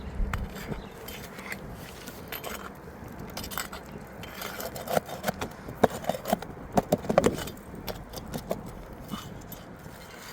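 A thin metal pry bar clinking and scraping against roofing nails and asphalt shingles as the nails are worked out, with a quick cluster of sharp clicks in the middle.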